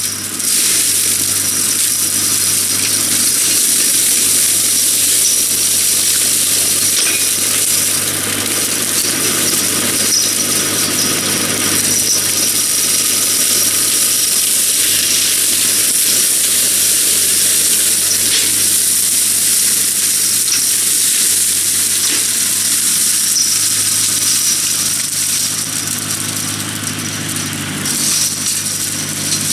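Tractor-mounted Graecus OBK flail mulcher shredding tall cane reeds: a steady, loud hiss of chopped stalks and debris with many small ticks, over the tractor engine running steadily under load.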